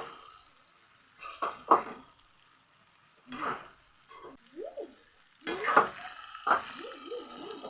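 A spoon scraping and stirring bogori (Indian jujube) pickle in a cooking pan over a faint steady sizzle, five or six separate scrapes with pauses between them.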